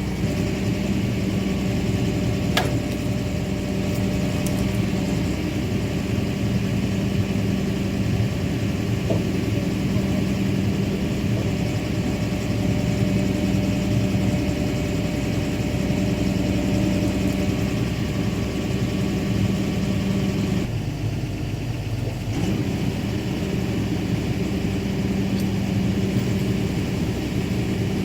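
Excavator's diesel engine running steadily, its note dipping briefly for about two seconds some two-thirds of the way through, with a single sharp click near the start.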